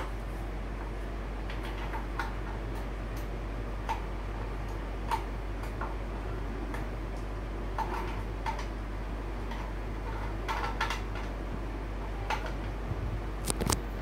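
Light clicks and taps of a fabric lamp shade being handled and fitted onto the top of a tripod floor lamp, scattered through, with a cluster near the end, over a steady fan hum.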